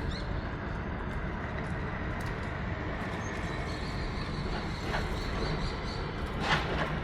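Steady low background rumble with a faint high steady tone, broken by a few soft clicks, the clearest about six and a half seconds in.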